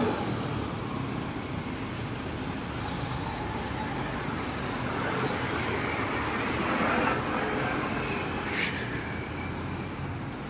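City street traffic: cars and motorcycles passing on a multi-lane road, a steady wash of engine and tyre noise that swells about two-thirds of the way through as a vehicle passes close.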